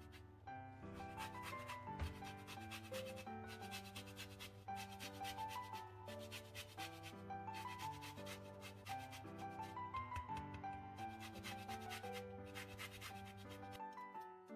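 Orange peel being grated on a small metal box grater: repeated rasping strokes of zesting, over soft background music.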